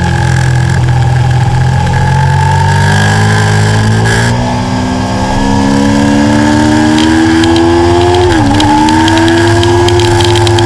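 Stock Aprilia Tuono V4 motorcycle's V4 engine under load on track, rising steadily in pitch as the bike accelerates, with a quick drop and recovery in pitch about eight and a half seconds in, an upshift, then climbing again. Wind rush runs beneath the engine.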